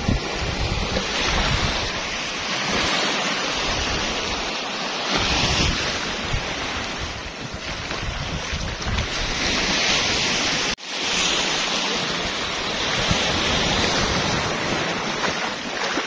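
Surf washing in over a shallow sandy beach, rising and falling in surges, with wind buffeting the microphone. The sound breaks off for an instant about eleven seconds in.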